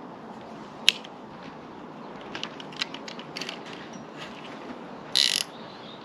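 Metal clicking and ratcheting from a mountain bike's top-mount gear shifter being worked with pliers to free the old gear cable. There is one sharp click about a second in, scattered small clicks, and a brief dense ratcheting rattle near the end.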